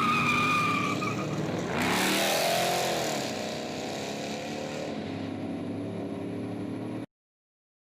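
A car engine running, swelling with a rush of noise and a gliding pitch about two seconds in, then fading; the sound cuts off suddenly about seven seconds in.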